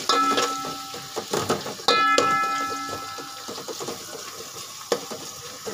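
Metal spoon knocking against the rim of a metal cooking pot while stirring onions frying in oil: two ringing clangs about two seconds apart, each dying away over a second or so. Lighter clicks and scrapes of the spoon come in between, and there is one more knock near the end.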